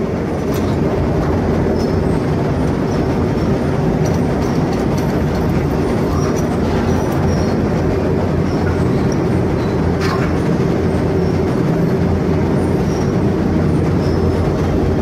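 Steady, loud machinery running with a constant hum, and a few light clicks and knocks over it, the clearest about ten seconds in.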